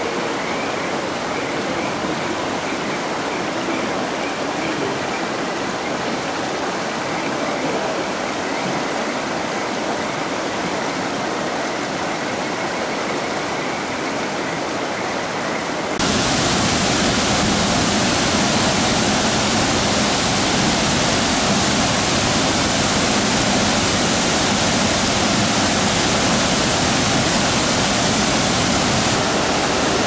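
Steady rush of flowing water, then about halfway through a sudden switch to the louder, fuller rush of Shiragin Falls, a waterfall pouring into a rocky pool.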